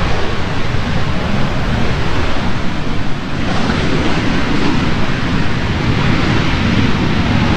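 Steady rushing roar of a Southwest Boeing 737's jet engines across the airfield, mixed with wind buffeting the microphone. The hiss grows brighter about three and a half seconds in.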